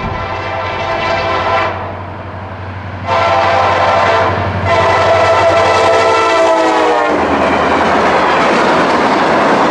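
CSX freight locomotive air horn blowing for a grade crossing: a blast ending about 2 seconds in, then two more, the last one the longest, over the low drone of the diesel engine. About 7 seconds in the horn stops and the locomotives pass close by with a loud rumble of engines and wheels on the rails.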